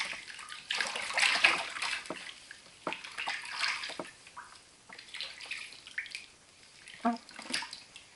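Bathwater splashing and sloshing in irregular bursts as a wet kitten is washed by hand in a shallow bathtub.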